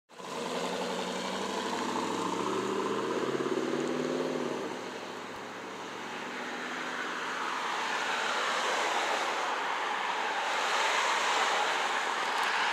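Derecho storm winds blowing, a steady rushing noise that eases briefly about five seconds in and swells again in the second half. For the first four to five seconds a low hum of several pitches runs under the wind, then stops.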